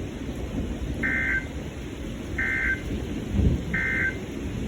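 Emergency Alert System end-of-message code: three short bursts of SAME digital data tones, evenly spaced about a second and a half apart, signalling that the alert broadcast is over. A steady low rumble runs underneath, with a dull thump about three and a half seconds in.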